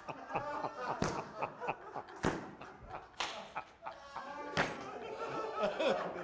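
A man laughing hard, with several sharp thumps about a second apart, like hands slapping a table.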